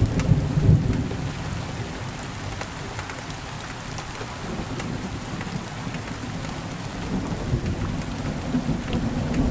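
Steady rainfall with scattered drop ticks, under a low rumble of thunder that fades over the first second or so and builds again near the end.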